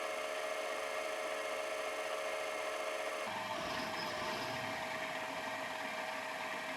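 Machine tool running steadily during a boring cut, a motor hum with a few steady tones over a light hiss. About three seconds in the sound changes abruptly, as at a cut, and one steady tone is left on top.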